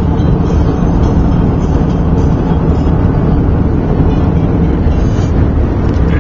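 Steady jet-airliner cabin noise in cruise flight: an even rush of engine and airflow noise, heavy in the low end, heard inside the passenger cabin.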